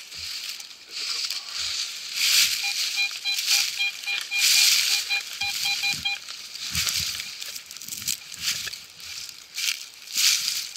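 Serrated hand digger scraping into soil and rustling dry leaves in irregular bursts. Between about two and a half and six seconds in, a metal detector beeps in quick short pulses, about three or four a second, as it sounds on a buried target.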